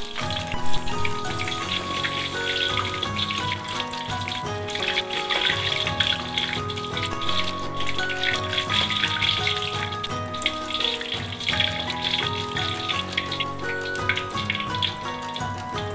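Sliced onion, garlic and ginger sizzling and crackling in hot oil in a wok as the aromatic oil is made, with a sharp knock about a second in. Background music with a melody plays throughout.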